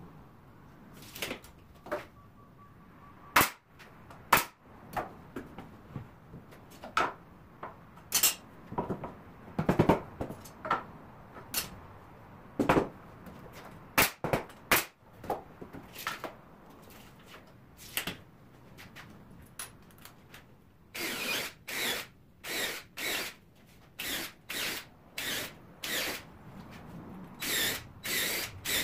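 Pneumatic nail gun firing into the joints of a wooden window frame: sharp, irregularly spaced shots, then a quicker, evenly spaced run of shots for the last eight seconds or so.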